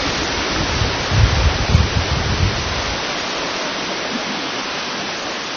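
Wind noise on a camcorder microphone: a steady rushing hiss, with low buffeting thumps from about half a second to three seconds in.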